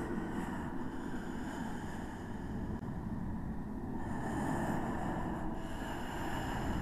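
Ambient sound-track drone: a steady rumbling noise with faint high ringing tones that fade out about a second in and swell back about four seconds in.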